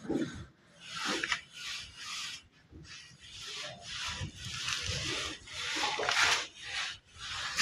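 Mason's trowel scraping and rubbing over fresh cement plaster in repeated uneven strokes, shaping a sharp corner on a door jamb.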